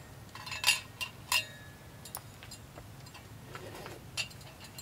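A few light clinks of cutlery against a dish or pot, sharp taps with a brief ring, the two loudest about a second apart early on and a fainter one near the end.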